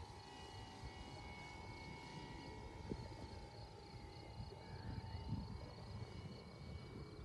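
A small propeller plane's engine drones faintly as a steady tone that fades after about five seconds. Under it are a faint even chirping of insects and a low rumble of wind on the microphone.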